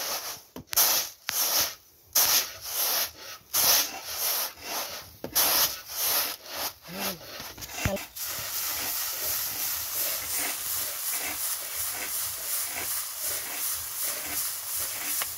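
Rice grains shaken in a round woven bamboo sieve, rustling against the bamboo and falling through onto a bamboo tray, in rhythmic strokes about two a second. About eight seconds in the shaking turns quicker and steadier.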